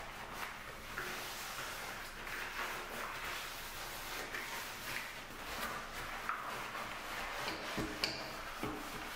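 Rubber-gloved hands squeezing a cloth in a jug of warm soapy water, then wiping a washbasin and scrubbing around its faucet: uneven rubbing and wiping with a few light clicks.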